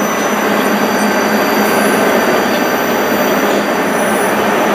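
Koleje Mazowieckie double-deck electric multiple unit rolling slowly past the platform: a steady, even running noise from its wheels and equipment, with a low hum and a thin high-pitched whine held throughout.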